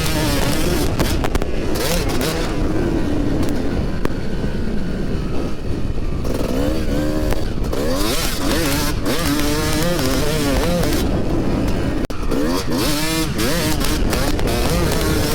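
Yamaha YZ250 two-stroke dirt bike engine, its pitch rising and falling over and over as it is revved and ridden. Heavy wind noise and distortion on the microphone run under it.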